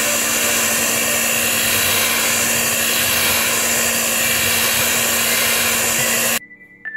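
Electric hand mixer running steadily at speed, its beaters churning thick cake batter in a glass bowl. The motor cuts off suddenly near the end, and soft chiming music comes in just after.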